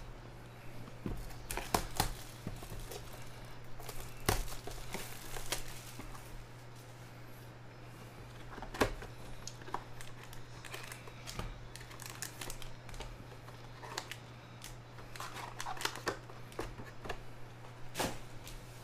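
Foil-wrapped Prizm Draft Picks basketball card packs crinkling and knocking against their cardboard hobby box as they are pulled out and laid down, in scattered clicks and rustles. A steady low hum runs underneath.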